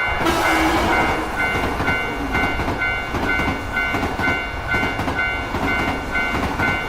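Japanese level-crossing alarm ringing its repeated two-tone 'kan-kan' ding, about twice a second, over the steady rushing clatter of a train passing the crossing.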